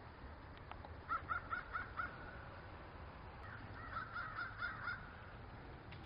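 Crow cawing in two quick runs of about five calls each, the first about a second in and the second around four seconds in, faint over a low outdoor background.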